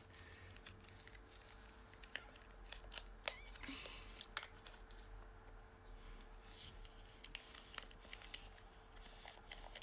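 Faint handling of small plastic sachets of slime powder: crinkling, rustling and scattered light clicks as the sachets are opened, over a faint steady hum.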